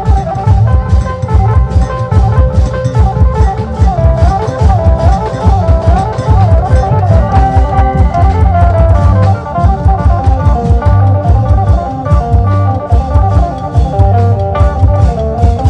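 Isan klong yao long-drum troupe playing lively music: the long drums beat a fast, steady rhythm under a wavering, ornamented melody line.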